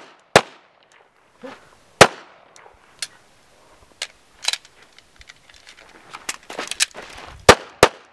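Semi-automatic handgun fired in single shots, spaced a second or more apart with a gap in the middle, then two quick shots near the end.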